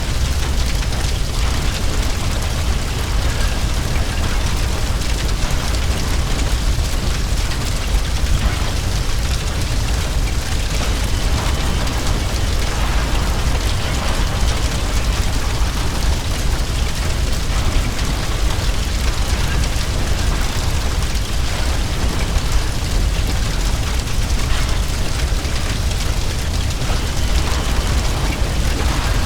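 Heavy blaze of a burning building: a steady low roar of fire with dense crackling and popping throughout.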